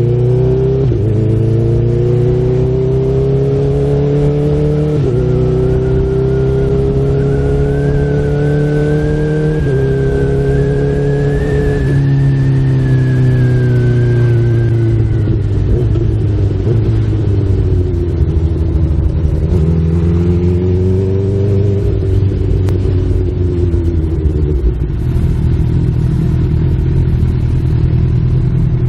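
Honda CB1000R's inline-four engine pulling up through the gears, its pitch dropping suddenly at quick clutchless upshifts about one, five and ten seconds in. It then eases off and slows, surges briefly around twenty seconds, and settles to a low steady run near the end. A faint high whine rises alongside while it accelerates.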